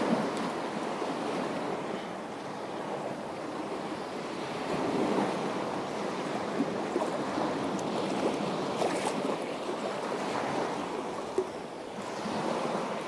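Sea waves washing on the shore in a steady rush, with some wind on the microphone and a few faint clicks.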